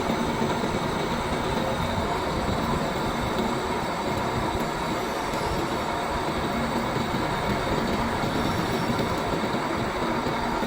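CNC machine running through a cut: a steady mechanical noise with faint constant tones.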